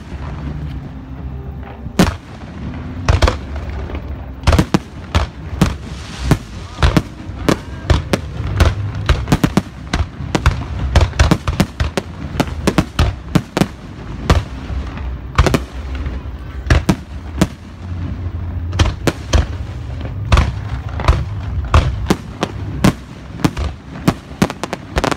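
Fireworks display: aerial shells bursting in a rapid, irregular barrage of sharp bangs, often several a second, over a steady low rumble.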